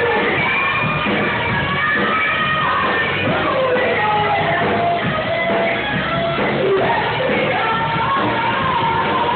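Live rock band playing, with electric guitar and a singer's vocals over it.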